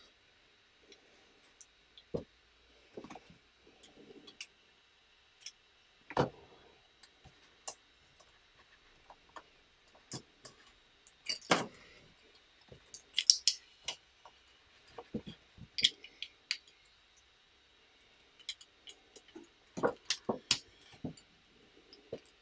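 Plastic LEGO bricks clicking and tapping as they are handled and pressed together: scattered small clicks, with a few sharper snaps spread through.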